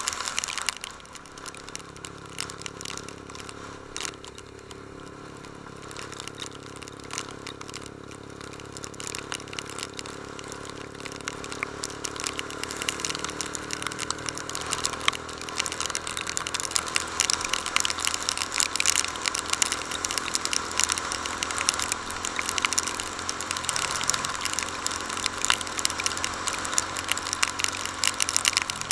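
Honda CB150 Invicta's single-cylinder four-stroke engine running under way, its note drifting up and down with speed and getting louder about halfway through. A dense crackle runs over it.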